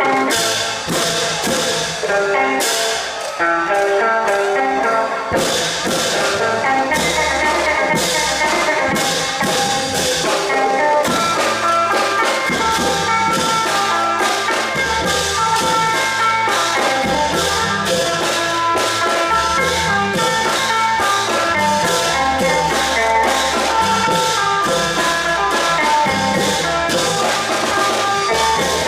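Thai long-drum (klong yao) ensemble music: fast, steady drumming under ringing melodic tones from tuned instruments.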